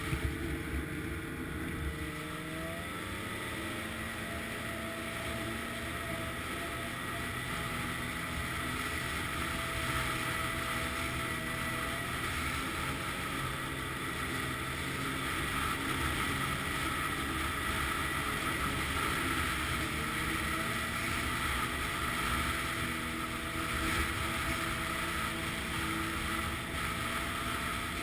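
Snowmobile engine running steadily while riding along the trail, over a steady rushing noise. The engine pitch rises briefly about three seconds in, then holds.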